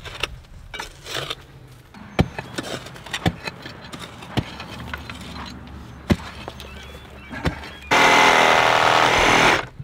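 Digging tools striking dirt and roots, a scatter of dull knocks and scrapes. About eight seconds in, a cordless power saw starts, runs loudly and steadily through a tree root for nearly two seconds, then stops.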